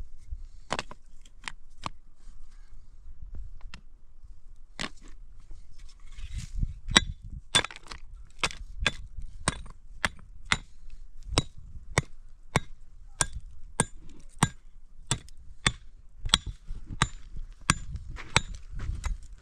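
Repeated sharp strikes of a metal hand tool, each with a short metallic ring. A few spaced blows come first, then a steady run at about two strikes a second from about five seconds in.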